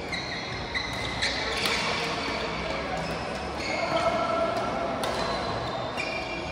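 Badminton play in a large indoor hall: court shoes squeak repeatedly on the floor and rackets strike the shuttlecock with a few sharp clicks. Voices can be heard in the background.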